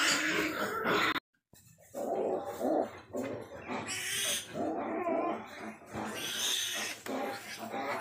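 Yorkshire sow grunting repeatedly, about once a second, while farrowing, with a short break in the sound about a second in.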